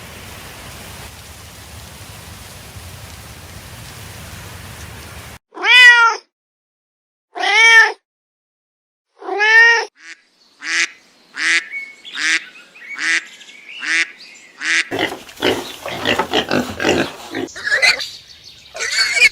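A steady rain-like hiss for about five seconds, then an abrupt cut to three loud, drawn-out cat meows about two seconds apart. They are followed by a quick run of short, higher-pitched calls and, near the end, a busy jumble of overlapping calls.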